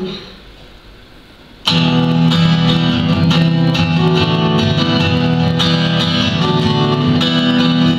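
Miked acoustic guitar strummed in steady chords, starting suddenly about a second and a half in after a quiet pause.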